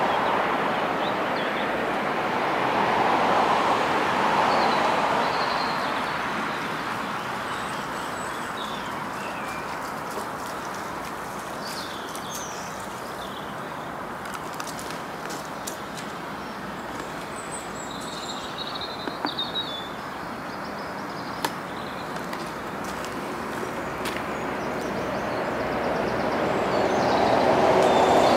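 Outdoor rushing noise that swells near the start, eases off in the middle and builds again near the end, with small birds chirping over it and a few faint ticks about two-thirds through.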